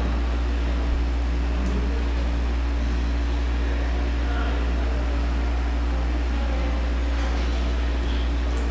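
Steady low hum with an even hiss over it, with no distinct events: room tone.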